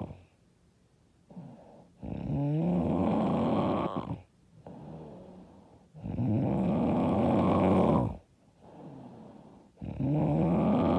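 A woman snoring loudly in sleep: three long, rough snores about four seconds apart, each lasting about two seconds, with quieter breathing sounds between them.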